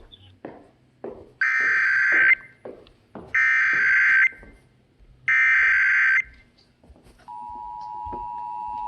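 Emergency Alert System header: three identical harsh, buzzy data bursts, each just under a second long with short gaps between them. About seven seconds in, the steady two-tone attention signal begins and slowly grows louder. Together they announce a tornado warning.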